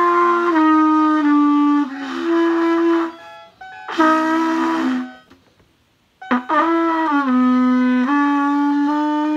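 Beginner's trumpet blown in three breathy phrases of long held notes, the pitch stepping down a little within each phrase, with short breaks between phrases.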